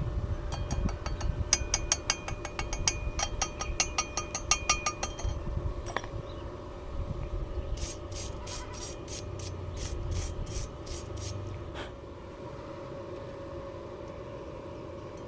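Sharp mechanical clicks over a steady hum: a fast run of about six clicks a second for several seconds, then, after a pause, a slower run of about ten crisper clicks.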